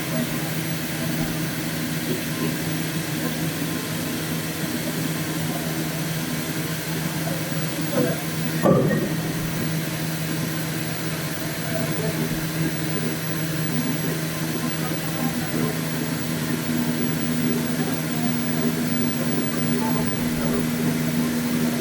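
CNC plate sawing and milling machine running with a steady hum, with one brief louder clunk about nine seconds in.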